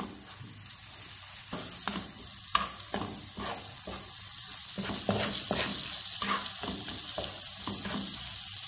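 Butter melting with brown sugar and lemon zest in a nonstick frying pan over a medium flame, sizzling more and more as it melts, while a wooden spoon repeatedly scrapes and stirs through it.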